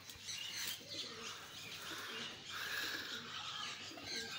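Domestic pigeons in a wire-mesh loft cooing, with higher chirping calls mixed in.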